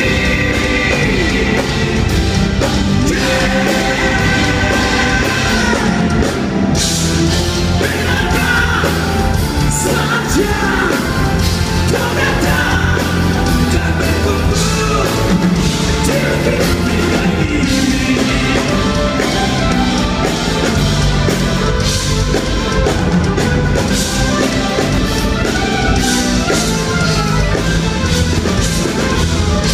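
Live rock band playing loudly, with drum kit, bass, electric guitar and keyboards under a sung melody, picked up by a phone's microphone in the concert hall.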